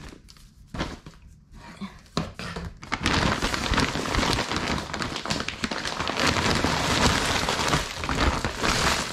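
Plastic bags and food packaging being handled: a few light knocks and clicks, then about three seconds in, continuous loud crinkling and rustling that lasts to near the end.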